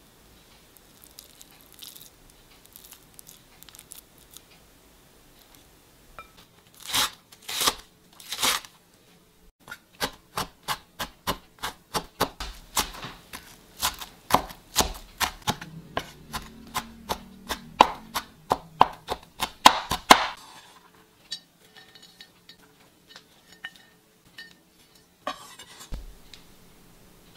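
Kitchen knife mincing red onion on a wooden cutting board: quick, even chops at about three a second. Three heavier strokes come first, and the chopping stops about two-thirds of the way in.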